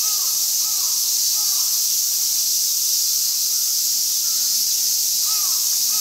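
Crows cawing, about half a dozen short falling caws with a pause in the middle, over a steady high-pitched insect chorus.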